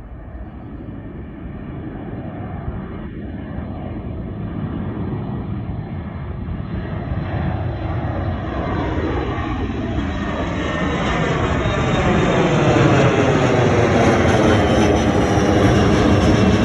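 Jet airliner taking off, its engine noise building steadily for about twelve seconds and then holding loud.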